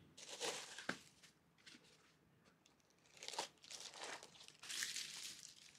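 Faint crinkling and rustling of packaging being handled and unwrapped, in several short bursts with a small click about a second in.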